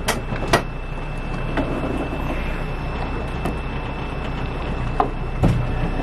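Steady low rumble of a moving vehicle, with a few light clicks and a short thump about five and a half seconds in.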